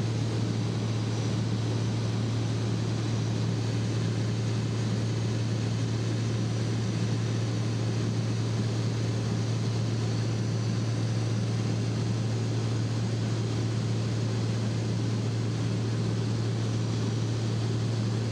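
Light aircraft's piston engine and propeller droning steadily in cruise, heard inside the cabin as a constant low hum under a wash of noise.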